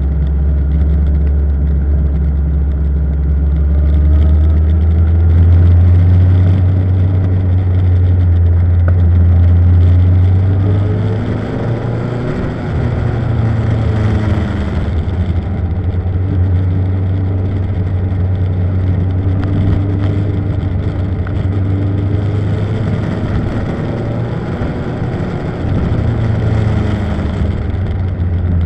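Motorcycle engine running on the move, its pitch rising and falling with throttle and gear changes through the bends. The deep drone eases off about twelve seconds in and briefly again near the end before picking up.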